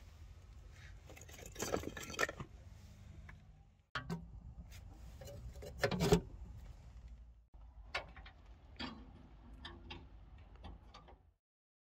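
Wooden and metal knocks and clanks as split firewood is laid in a smokehouse firebox and its rusty iron doors are swung shut and latched. The loudest clank comes about six seconds in.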